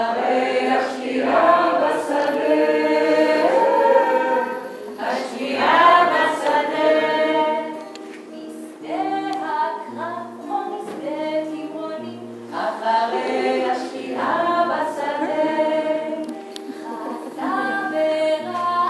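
Live song: a woman singing into a microphone with other voices singing along, over strummed acoustic guitar. The singing swells in phrases and drops back between them.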